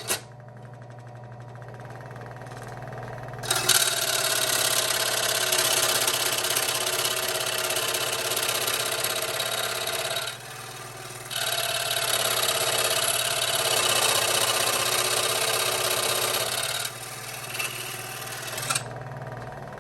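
Harbor Freight 16-inch variable-speed scroll saw running with a steady hum, its blade cutting into a piece of metal. The loud cutting noise starts a few seconds in, breaks off for about a second halfway through, resumes, and stops shortly before the end while the motor keeps humming.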